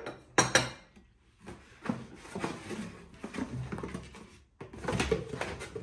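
Porcelain china clinking: two sharp clicks about half a second in as a teacup is set on its saucer, followed by cardboard box flaps and paper rustling and soft taps as a plate is lifted out of its box.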